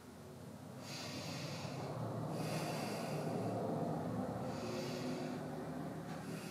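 A person breathing slowly and audibly in and out through the nose, a breathy hiss with each breath a second or two long, paced to a yoga arm movement.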